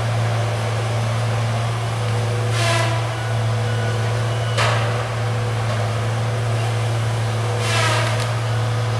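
A steady low mechanical hum, with two brief higher-pitched sounds about three seconds and eight seconds in and a short click in between.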